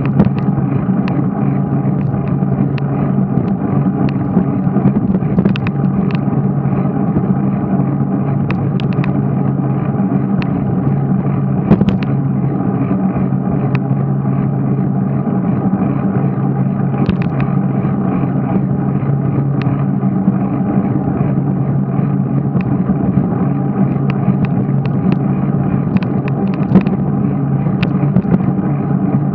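Steady, muffled rumble of wind and riding noise on a moving cyclist's camera, with scattered sharp clicks and knocks throughout.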